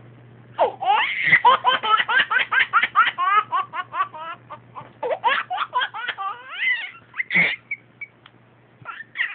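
Hearty, high-pitched laughter in rapid ha-ha pulses, in two long runs, with a short loud burst about seven seconds in.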